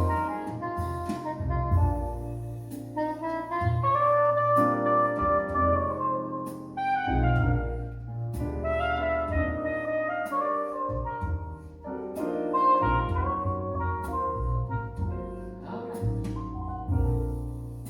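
Instrumental break of a slow jazz ballad: a sustained, singing melodic solo line over piano chords and low bass notes, with no vocals.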